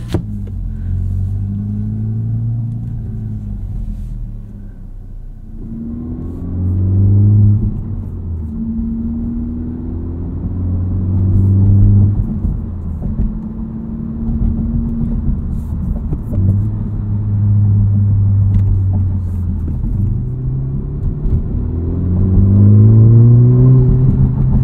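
2023 Honda Civic Type R (FL5) with an MRT Street Race straight-through axle-back exhaust, heard from inside the cabin as its turbocharged 2.0-litre four-cylinder accelerates through the gears. The exhaust note rises and drops in pitch in several pulls as the car speeds up and shifts, loudest near the end.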